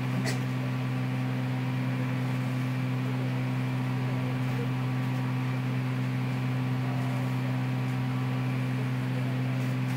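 Steady, fairly loud electrical hum with a faint hiss underneath, one unchanging drone: noise from the recording computer, which the uploader apologises for as his computer being annoying.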